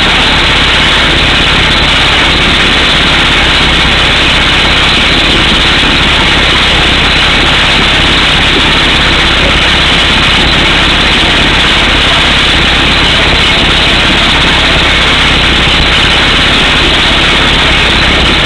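Truck-mounted air hammer drilling an 18-inch hole through solid rock, with compressed air blasting rock dust out of the hole. A loud, steady, unbroken noise with the rig's engine running under it.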